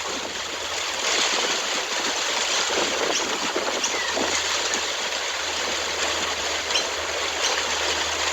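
Heavy rain pouring down in a windstorm: a steady rushing hiss of falling and running water.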